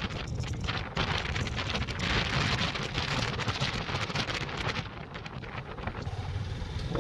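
Wind rushing over the camera microphone of a moving Honda motorcycle, with a low steady rumble of the bike and road underneath; the rush swells a couple of seconds in and eases off near the end.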